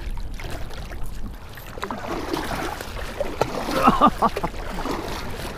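Small waves lapping and splashing against a kayak's hull. In the second half, indistinct voices talk over it.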